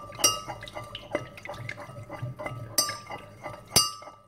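A spoon clinking quickly and repeatedly against the sides of a glass jug while stirring a stock cube into hot water, with a few louder clinks about a quarter second in, near three seconds in and just before the end.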